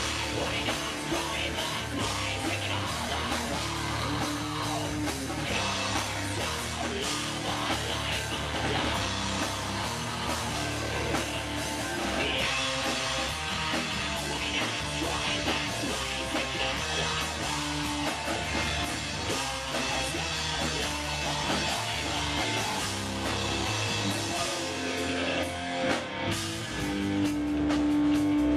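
Live rock band playing at full volume: electric guitar, bass guitar and drum kit. A single note is held steady near the end.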